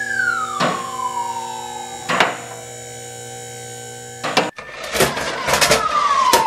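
Fire engine siren falling in pitch over a steady electronic drone, broken by sharp clicks. After an abrupt cut about four and a half seconds in, a second siren glide sinks among a cluster of clicks and turns into a fast warble near the end.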